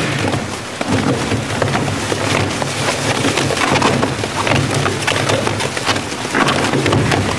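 Rotary shear shredder running under load: its hooked cutter discs tear and crush bulky white bags in a dense, continuous crackling and ripping, with many small snaps, over a steady low drive hum.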